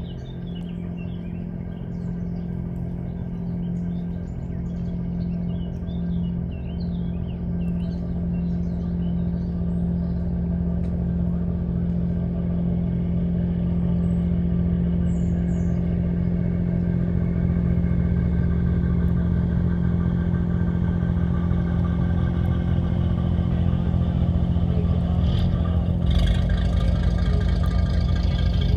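A boat's engine running with a steady hum, growing louder as the vessel comes closer.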